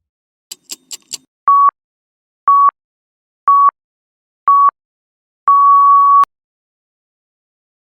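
Electronic countdown beeps: four short beeps, one second apart, then a longer final beep at the same pitch, like a start or time signal. Four quick clicks come just before the first beep.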